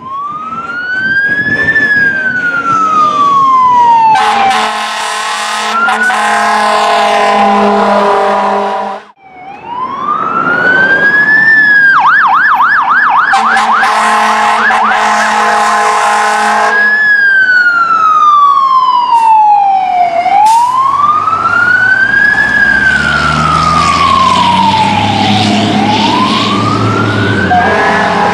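Fire engine siren cycling in a slow rising-and-falling wail, switched briefly to a fast yelp in the middle. Long steady horn blasts sound over it twice. Low engine rumble builds near the end as the truck comes close.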